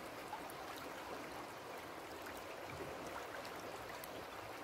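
River water running over shallows: a steady rush and trickle of flowing water.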